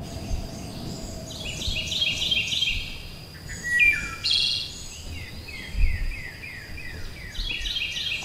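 Birds chirping: runs of short, quick notes, many sliding downward, with one louder call about four seconds in.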